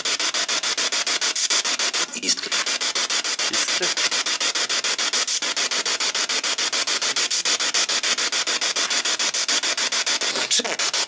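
Spirit box radio sweeping through stations, played through a JBL portable speaker: steady loud static chopped by a rapid, even ticking as it steps from station to station. Brief broken fragments of radio voice pop out about two seconds in and again near the end.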